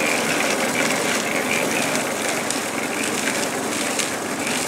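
Portable drum concrete mixer running, a steady mechanical drone.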